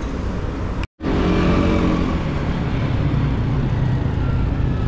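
Road traffic: a motor vehicle driving past, its engine note sagging slightly as it goes by, over steady street noise. The sound cuts out completely for a split second just before one second in.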